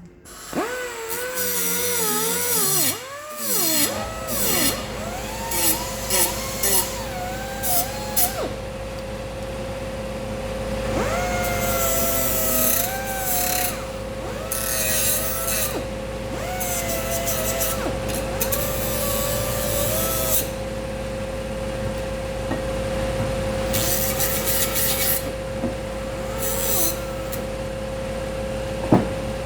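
Rotary power tool fitted with a Roloc abrasive disc, grinding metal in repeated passes. Its whine sags and recovers in pitch as the disc is pressed on and lifted off, with a hissing rasp during each contact.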